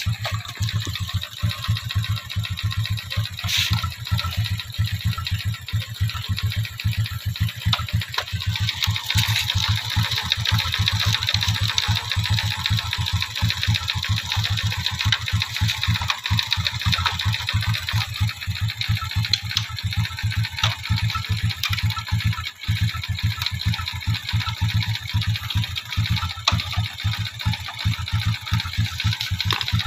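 Small engine idling steadily, a rapid even putter of firing pulses.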